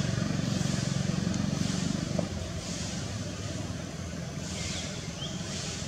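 A motor vehicle's engine running close by, its hum falling away about two seconds in, with a high hiss pulsing about once a second over it.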